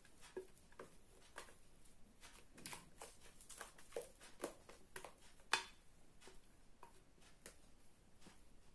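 Faint, scattered scrapes and soft taps of a spatula working thick mascarpone cream out of a bowl, with one sharper click about five and a half seconds in.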